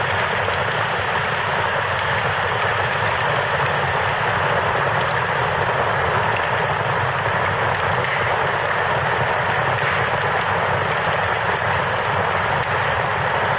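Steady, unbroken rush of a flowing river.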